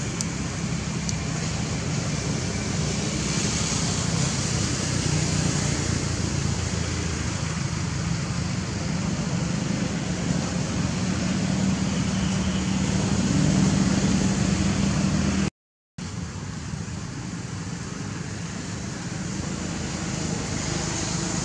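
Steady low rumble and hum with a hiss over it, broken by a half-second gap of total silence about three quarters of the way through.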